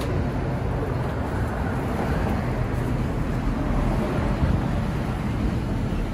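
Steady city street ambience: road traffic passing on a busy avenue, a continuous low rumble with no distinct events.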